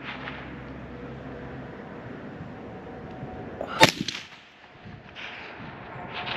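A single gunshot about four seconds in, a sharp crack with a quick echo after it.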